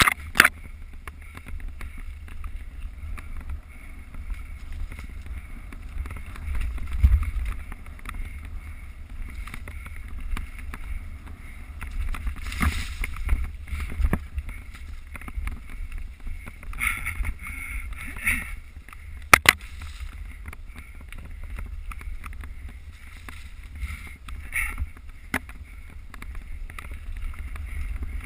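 Mountain bike riding on a trail, heard through a GoPro microphone: steady low wind rumble with scattered sharp knocks and rattles from the bike over rough ground. The loudest knocks come right at the start and about nineteen seconds in.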